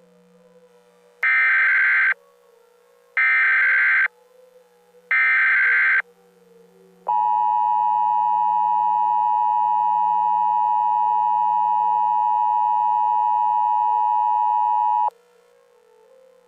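Emergency Alert System tones: three short bursts of the warbling SAME data header, about a second each with a second's gap between them, then the two-tone EAS attention signal (853 and 960 Hz) held for about eight seconds before cutting off suddenly.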